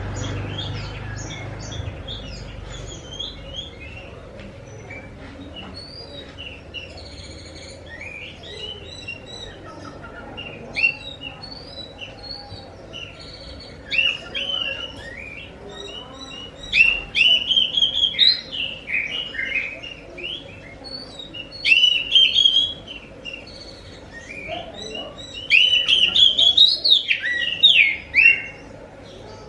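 Oriental magpie-robin (kacer) singing a varied run of quick whistled and chattering phrases that glide up and down, loudest in bursts in the second half. A faint steady hum runs underneath.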